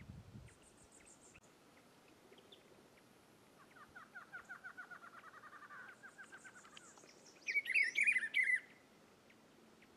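Rufous-browed peppershrike singing: a rapid trill of repeated notes for about three seconds, then a loud, brief whistled phrase with gliding notes about seven and a half seconds in.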